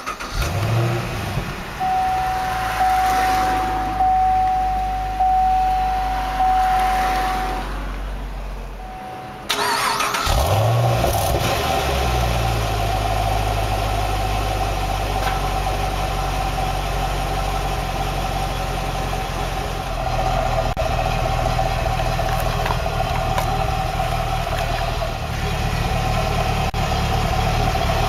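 A 2010 Chevrolet Camaro SS's 6.2-litre LS3 V8 cranks, catches and settles into idle, heard from inside the car, with a high steady tone over it for a few seconds. About ten seconds in it is started again and idles steadily, heard at the dual exhaust tips.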